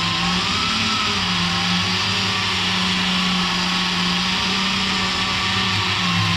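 Variable-speed angle grinder running steadily at a low speed setting, driving a felt polishing attachment against a stainless-steel exhaust pipe. Its motor whine wavers slightly in pitch and cuts off abruptly at the end.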